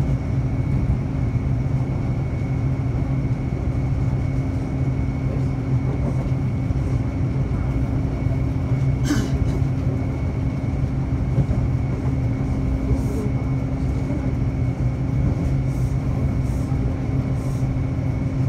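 Taipei Metro C301 electric train running along the track, a steady rumble with a low hum and a faint high whine. A brief high squeak comes about nine seconds in, and faint ticks follow near the end.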